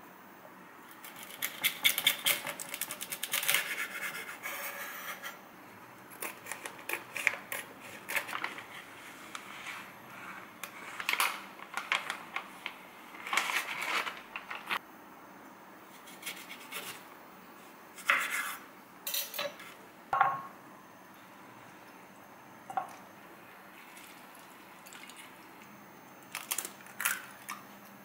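A chef's knife chopping asparagus on a wooden cutting board, a quick run of strokes in the first few seconds, followed by scattered clicks, taps and clinks of food and dishes being handled on the board.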